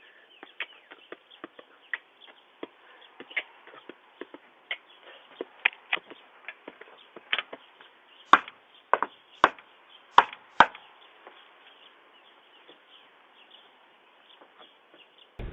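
A run of irregular short clicks and taps, with four louder sharp knocks between about eight and ten and a half seconds in, heard through a doorbell camera's microphone.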